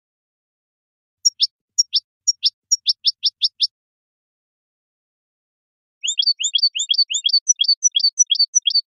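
European goldfinch singing in two high-pitched phrases: first a run of sharp falling notes that quicken, then after a pause of about two seconds a fast rhythmic series of repeated chirping notes, about four a second.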